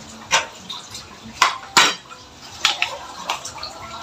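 Metal kitchen utensils, spoons and a wire-mesh strainer, clinking and knocking against bowls: about five separate knocks with short ringing, the loudest just before the middle.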